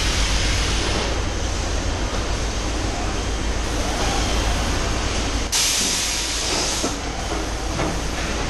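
Robotic palletizing line for 5-litre water bottles running, with a steady low machine hum. Two bursts of compressed-air hiss from the pneumatics cut in: one at the start lasting about a second, and one about five and a half seconds in lasting about a second and a half.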